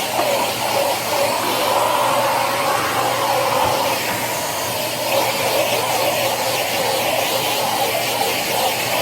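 Electric marble polishing machine running steadily with its pad working across a marble sink countertop, as it sands and polishes out scratches.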